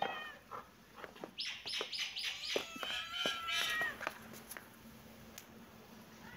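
Kittens meowing: one meow right at the start, then a quick run of short, high-pitched mews and chirps for a few seconds, with a few sharp clicks among them.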